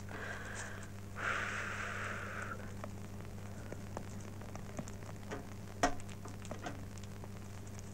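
Quiet old film soundtrack: a steady low mains hum with scattered crackle and clicks, and a short rustle about a second in.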